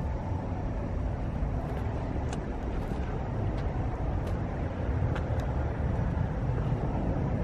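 Steady low outdoor background rumble with a few faint clicks scattered through it.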